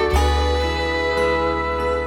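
Slow country song playing an instrumental passage with no singing: a new chord struck just after the start and held.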